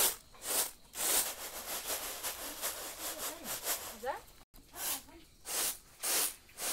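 Ground soybean grains rustling and swishing on a round bamboo winnowing tray as it is shaken and tossed, in rhythmic strokes about twice a second: winnowing to separate husks from the ground beans.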